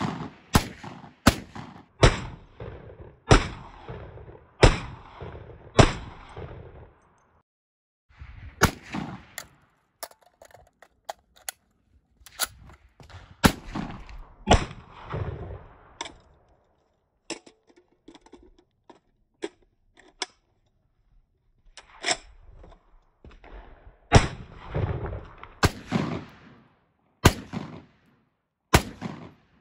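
Springfield M1A semi-automatic rifle being fired in strings of single shots, mostly a second or two apart. Each shot is a sharp crack that echoes as it fades. There are three strings, with pauses between them.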